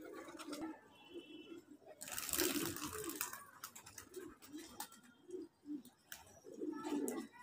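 Domestic pigeons cooing, low repeated coos all through. About two seconds in comes a loud, noisy rustle lasting about a second, from handling or wing movement.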